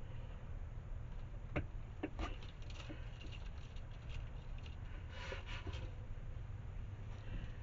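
Faint scattered clicks and light rustling over a steady low rumble, with a small cluster of clicks about five seconds in.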